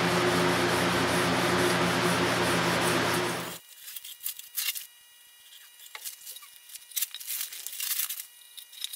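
Steel wool scrubbing a wet, stripped wooden board: a steady rough noise over a low hum that stops abruptly after about three and a half seconds. Then faint rustling and crackling as newspaper and masking tape are pulled off the boards.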